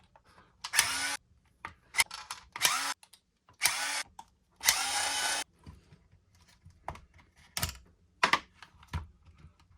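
Small electric power driver backing out the motor-cover screws of an RC truck, in four short runs of a steady whine. A few light clicks and knocks follow near the end as the screws and cover are handled.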